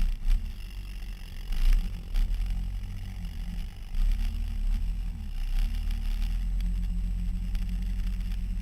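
Engine of a Honda off-road utility vehicle running steadily under way, with scattered knocks and rattles from the machine jolting over the trail.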